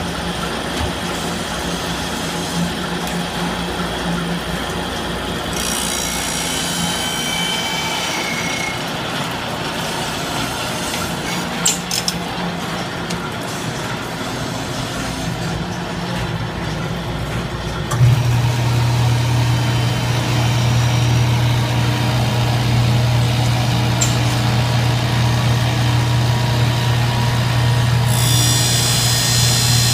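Shop grinding machines running, a steady mechanical hum with grinding noise. About eighteen seconds in, a louder, deeper motor hum starts and holds, and near the end a high hiss joins it.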